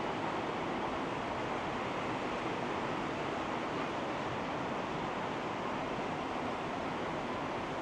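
Steady, even rushing outdoor background noise with no thunderclap or other sudden sound.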